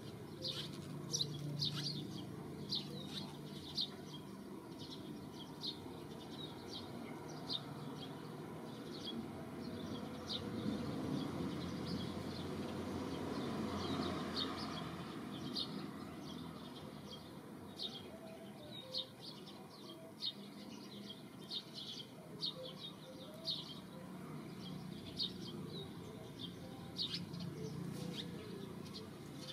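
Small birds chirping: short, high chirps at irregular intervals, about one or two a second, over a steady low background rumble that swells briefly around the middle.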